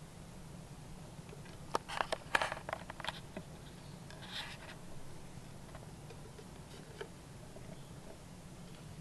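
Light scratching and a quick cluster of clicks from loose bark-chip substrate being disturbed, about two to three seconds in, then a brief rustle and a single click later, over a steady low hum.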